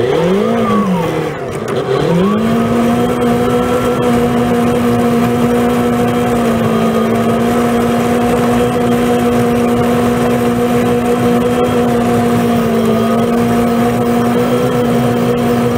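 Engine driving a front-mounted Braun snow blower, heard from inside the cab: the revs rise and fall twice, then hold steady at high revs as the blower throws snow off the road.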